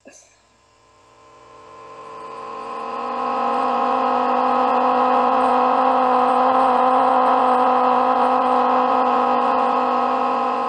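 Neural-network 'voice' synthesised from a face image, played back: a steady, wordless droning tone with many overtones that swells in over the first three seconds and then holds. It does not sound like a human voice.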